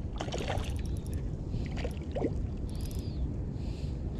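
A hooked fish splashing at the water's surface near the start as it is played in on an ultralight spinning rod, over a steady low wind rumble on the microphone.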